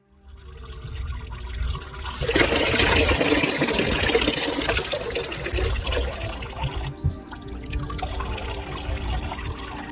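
Water gushing from a damaged tap, a loud rushing that builds about two seconds in and eases off after about seven seconds.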